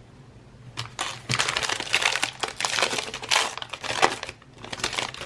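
Plastic wrapper of a trading card pack crinkling loudly as it is handled and opened, in a dense run of crackles from about a second in, with a short break near the end.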